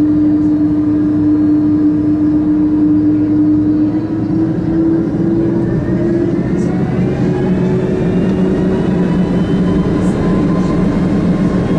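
Airbus A330 jet engines heard from inside the passenger cabin as they spool up for the takeoff roll. A steady hum for the first few seconds, then from about halfway several whining tones rise steadily in pitch.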